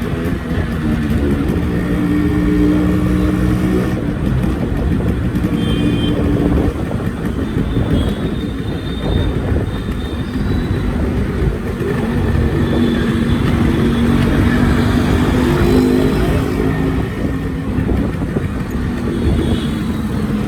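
Yamaha RX-series two-stroke motorcycle engine running, its pitch rising and falling a little with the throttle.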